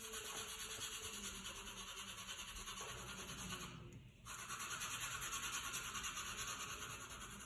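Rapid back-and-forth shading strokes scratching on paper, with a brief pause about four seconds in.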